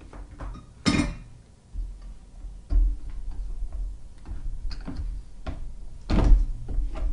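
Small clicks, knocks and low bumps of hand work at a soldering bench, with two short, louder rustling bursts, about a second in and about six seconds in.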